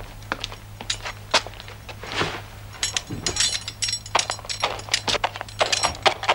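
A run of short, sharp clicks and clinks, sparse at first and quicker and denser from about halfway through, over a steady low hum.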